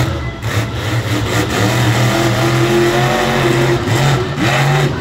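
Monster truck's supercharged V8 engine running loud and revving, its pitch rising and falling, with two quick drops in pitch near the end.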